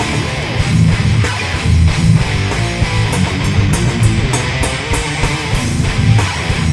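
A hard rock band playing an instrumental passage: distorted electric guitar over bass and drums, with cymbal hits at a steady beat and no singing.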